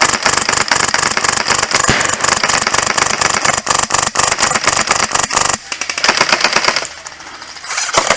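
Airsoft M4 with a Polarstar Fusion Engine HPA system firing a long full-auto burst of rapid, evenly spaced shots that stops about five and a half seconds in.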